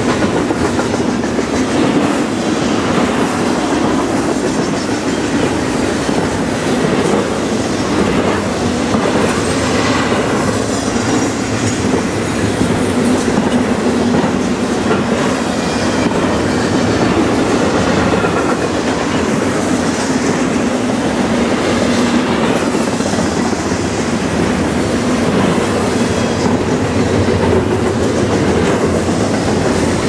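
Double-stack container freight cars rolling past at track speed: a steady rumble of steel wheels on rail with a continual clickety-clack of wheel clicks.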